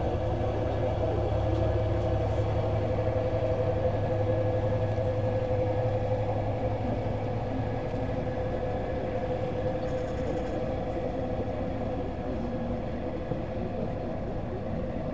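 Diesel shunting locomotive running steadily as it hauls a train of double-deck coaches through the yard: a constant hum over a low rumble.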